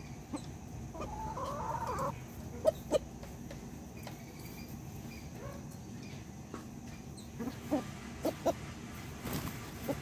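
Chickens clucking in a flock: a longer call about a second in, then a few short, sharp clucks.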